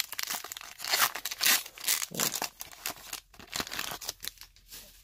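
Foil trading-card pack wrapper being torn open by hand, a run of irregular crackly rips and crinkles that stop shortly before the end.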